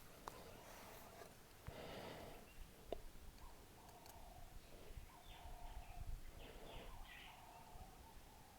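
Near silence: a few faint small clicks from handling the phone case and the adhesive tube, with light breathing.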